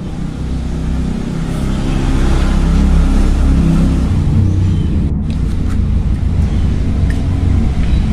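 A motor vehicle's engine running steadily, growing louder about a second and a half in.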